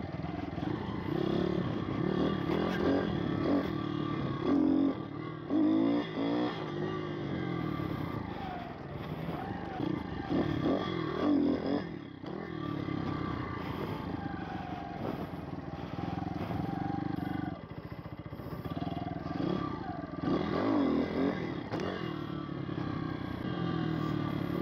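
Pit bike engine running hard while ridden, the revs rising and falling repeatedly as the throttle is worked, heard close up from the rider's helmet.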